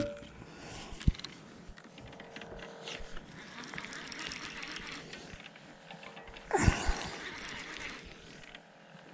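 Handling noise from fishing rods and a baitcasting reel: a sharp click about a second in, faint rustling and small ticks, then a louder brushing scuffle about two-thirds of the way through.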